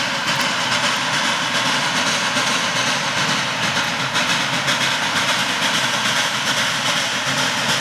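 Articulated compound steam locomotive C&O 1309, a 2-6-6-2 Mallet, working hard upgrade: a dense, steady rush of exhaust chuffs and steam.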